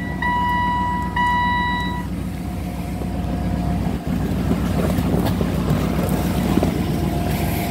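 2007 Chevrolet Suburban LTZ's V8 idling steadily just after a cold start, running smoothly. A dashboard warning chime beeps three times over the first two seconds.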